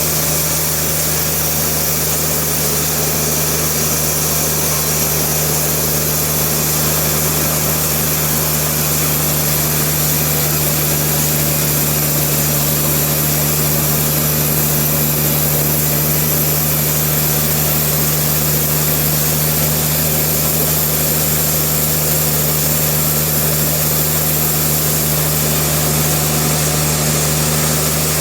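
Sawmill machinery running at a steady speed: an even engine hum that does not change.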